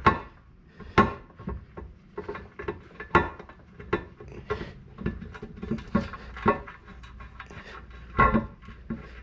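Scattered clicks, clinks and knocks of metal bolts and the metal ride plate being handled against the jet ski hull as the bolts are started by hand, roughly one or two a second, with a louder knock near the end.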